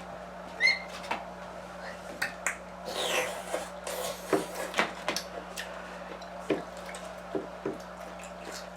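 Scattered wet clicks and smacks of people handling and chewing juicy pickled pineapple chunks, with a short squeak about half a second in.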